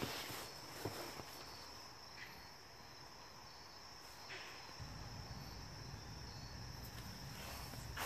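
Faint, steady high-pitched drone of insects, with a few light knocks. A low rumble comes in about five seconds in.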